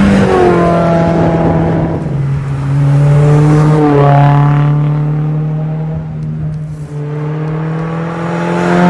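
2022 Subaru BRZ's 2.4-litre flat-four through an AWE Track Edition cat-back exhaust, pulling through the gears. The engine pitch climbs and then drops at upshifts just after the start and about four seconds in, then climbs again near the end.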